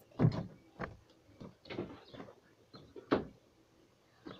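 A few separate knocks and bumps, the loudest about a quarter-second in and another a little after three seconds.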